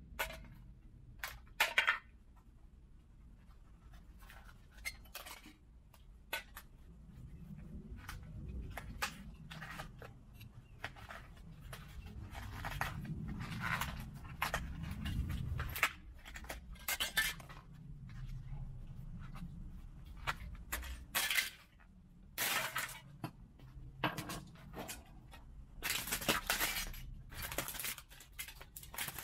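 Broken plastic parts of a smashed DJI FPV drone, its goggles and motion controller clattering and clinking: scattered clicks and knocks as pieces are moved and dropped onto the pile. Louder cracking and crunching near the end as a shoe presses down on the debris.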